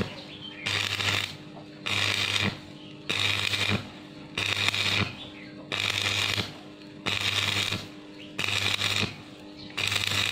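Arc welding: the welding arc is struck and broken again and again in an even rhythm, about eight crackling, sizzling bursts each under a second long, roughly one every 1.2 s, each with a low electrical hum under it.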